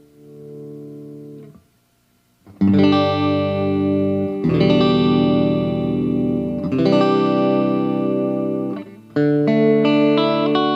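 Aria Pro II PE electric guitar playing chords. A chord fades out, and after a short gap about two seconds in, three chords are struck one after another, each left to ring for about two seconds. Near the end, single notes are picked over a held chord.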